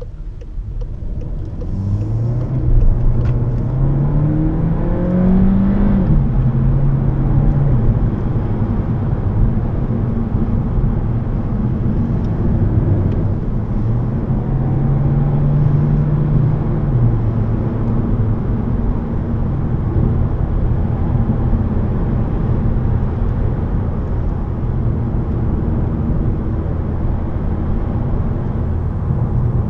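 VW Golf 7 1.5 TSI Evo's turbocharged four-cylinder petrol engine, heard inside the cabin, pulling away through the gears. The engine note rises and drops back at about six and eight seconds as gears change, rises briefly again a little past halfway, then settles into steady cruising with tyre and road noise.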